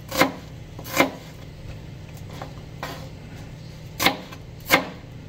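Kitchen knife chopping a red onion on a plastic cutting board. The blade hits the board in sharp knocks: two near the start and two about four seconds in, with a few fainter taps between, over a low steady hum.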